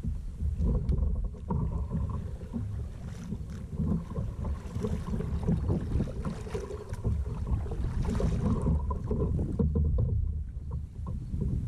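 Kayak moving on a river: water rushing and splashing around the hull, with a low, uneven wind rumble on the microphone.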